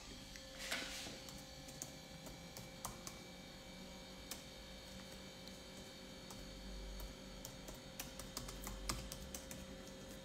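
Faint irregular clicks of typing on a keyboard, over a steady electrical hum.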